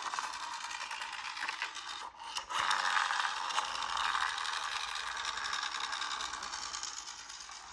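A small toy car's mechanism whirring and rattling, breaking off briefly a little over two seconds in, then starting again and slowly fading away.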